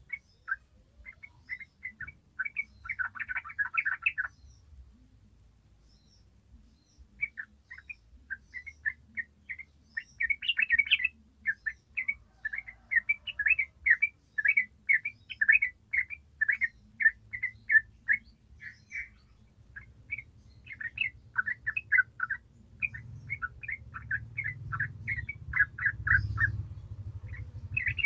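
Yellow-vented bulbul singing a long chattering run of short, quick notes, about two or three a second. There is a brief pause of about three seconds near the start.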